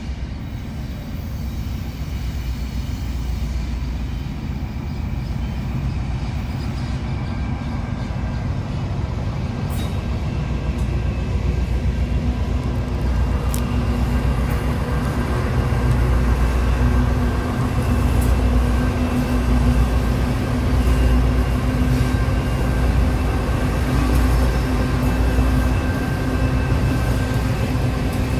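Genesee & Wyoming XRN class diesel-electric freight locomotives approaching and passing. A low engine rumble grows steadily louder, and a steady hum and whine join in about halfway through as the lead locomotives draw level.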